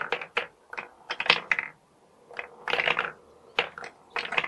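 Marbles rolling and dropping through a wooden marble adding machine, clicking against its wooden switches and each other. They come in several short bursts of rattling clicks a second or so apart.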